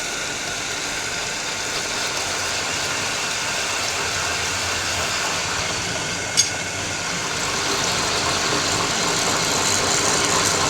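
Workshop machine running steadily, a dense even mechanical noise that grows a little louder near the end, with one sharp metallic click about six seconds in.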